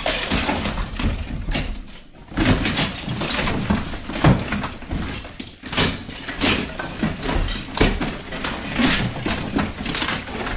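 Old lath and plaster wall being pried apart with a fire maul: wooden lath strips cracking and snapping and plaster chunks breaking off and falling, in repeated sharp cracks and crunches.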